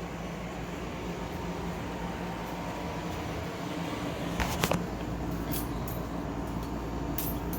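A steady low hum with a hiss, like a running machine, with a couple of sharp clicks about halfway through.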